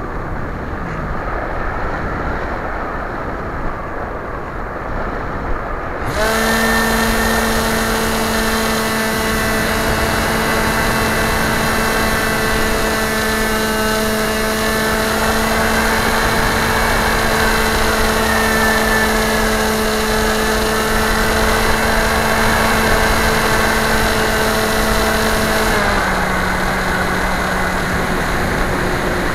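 Air rushing past the camera of a radio-controlled model airplane gliding with its motor off. About six seconds in, the motor and propeller start and run at a steady pitch, then drop to a lower, steady pitch a few seconds before the end as the throttle is eased back.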